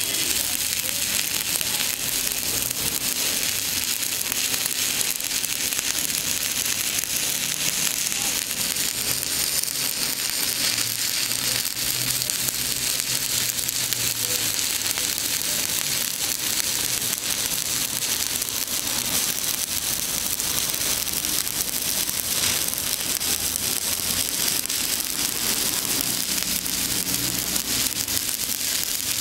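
Stick (shielded metal arc) welding arc burning steadily: a continuous dense crackle and sizzle with no breaks.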